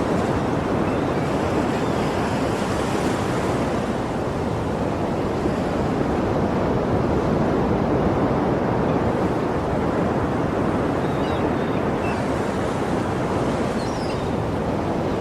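Sea surf washing in a steady, continuous rush that rises and falls only slightly.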